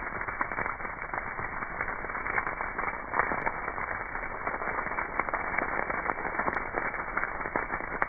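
Brush fire crackling as flames burn through dry shrubs and grass: a dense, steady run of many small snaps and pops.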